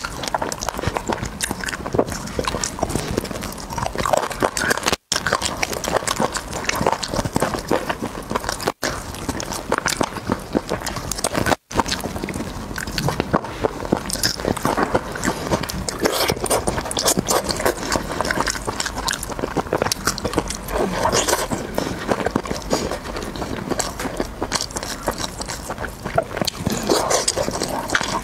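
Close-up eating sounds of a person biting and chewing braised chicken drumstick meat and tearing it off the bone, a dense run of small crackly clicks. The sound cuts out briefly three times.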